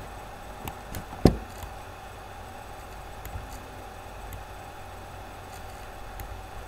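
Steady low electrical hum with a few light clicks and one sharp knock about a second in.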